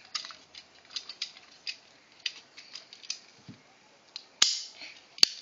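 Orange plastic toy cap-gun revolver clicking about ten times in light, sharp snaps, then two loud sharp cracks around four and five seconds in.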